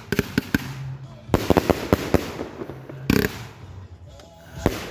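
A 66-shot consumer fireworks cake firing, with sharp bangs and crackling. A rapid run of cracks comes about a second and a half in, and a heavier bang about three seconds in.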